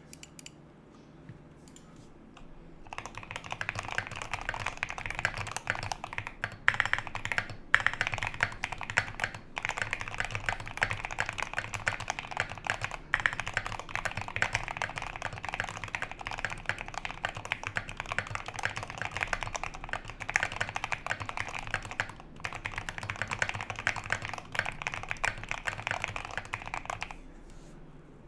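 Continuous rapid typing on a GMMK Pro mechanical keyboard fitted with lubed Akko CS Jelly Black and CS Silver linear switches and SA-profile ABS double-shot keycaps. A few single key clicks come first; the steady run of keystrokes starts about three seconds in and stops shortly before the end.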